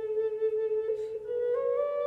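Wooden Native American flute playing a slow melody: a long held low note that steps up to a higher note about one and a half seconds in.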